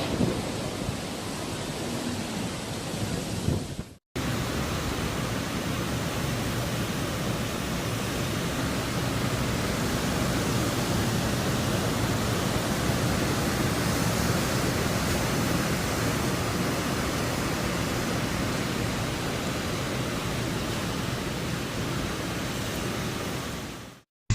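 Typhoon wind and rain making a steady, even rush of noise, broken off briefly about four seconds in.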